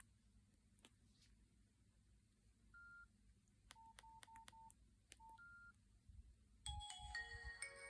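Nokia 6136 mobile phone: scattered key clicks and a few short, single-pitch keypad beeps as its menu is worked. About seven seconds in, one of its preloaded ringtones starts playing, a quick run of electronic tones.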